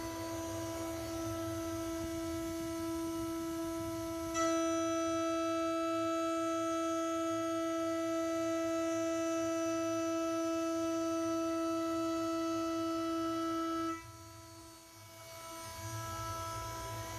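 CNC router spindle running at high speed with a steady high-pitched whine during a test cut in 6082 aluminium. It gets suddenly louder and brighter about four seconds in, drops off sharply near the fourteen-second mark, then builds back up.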